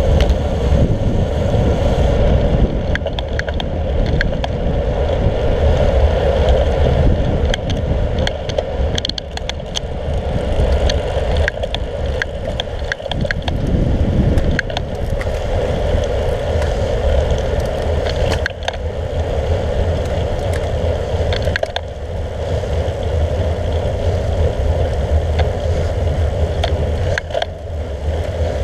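Wind buffeting and road noise picked up by a handlebar-mounted camera on a moving road bike, with frequent small clicks and rattles from the road surface.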